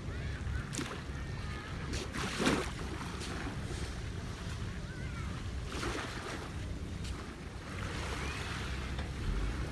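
Small waves lapping and washing up onto a sandy beach, a few soft rushes of surf, with wind rumbling on the microphone.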